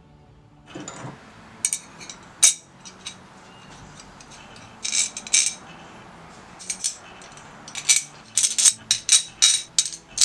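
Small metal screws and hardware clinking and rattling as they are sorted through by hand: irregular sharp clicks, sparse at first and coming thick and fast in the second half.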